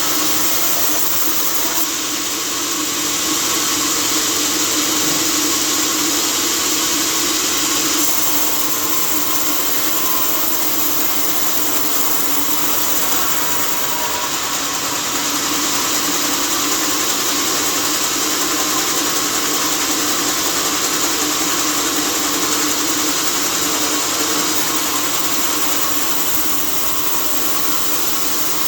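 Sawmill machinery running steadily, a constant loud hum and hiss.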